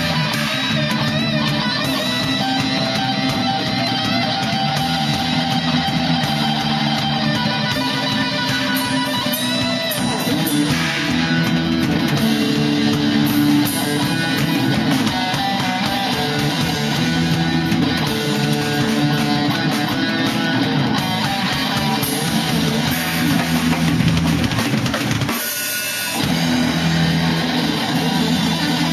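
Rock music with guitar and a drum kit, playing continuously; the low end drops out briefly near the end before the band comes back in.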